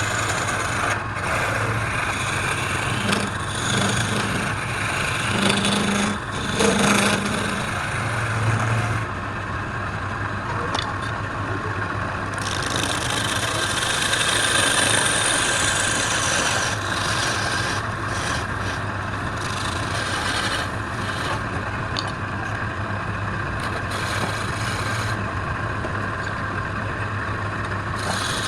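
Woodturning lathe running steadily with a motor hum while a tool scrapes and cuts the spinning wood; the scraping changes in brightness as the cut varies.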